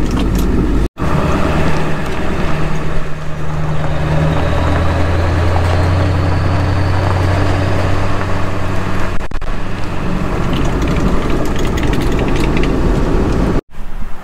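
Pickup truck engine running steadily under way while towing a tile cart, a low hum with road noise. The sound breaks off abruptly for an instant about a second in and again near the end.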